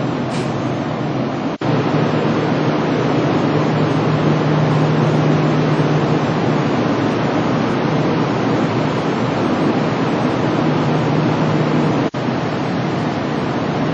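Steady whooshing hum of a Kintetsu commuter train standing at the platform with its air-conditioning and equipment fans running, under a low steady drone that fades in the middle and returns near the end. The sound cuts out for an instant twice, about one and a half seconds in and near the end.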